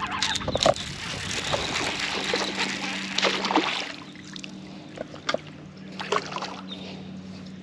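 A small bass splashing and thrashing at the water's surface as it is reeled in to the boat, loudest in the first few seconds, then a few smaller splashes. A steady low hum runs underneath.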